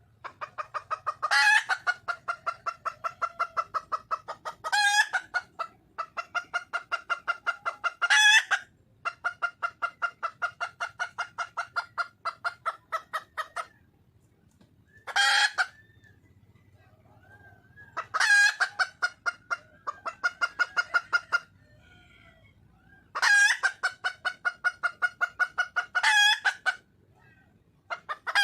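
Junglefowl hen calling for a mate: a loud, high squawk followed by a fast run of clucks, about eight a second, repeated over and over with short pauses.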